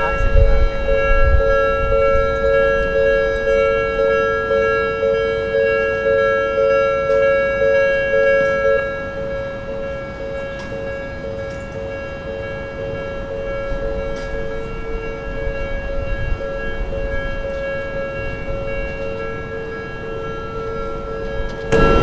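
Japanese level crossing's electronic warning bell ringing steadily, a rapid two-tone ding repeating about twice a second, warning that a train is approaching. About nine seconds in it becomes quieter.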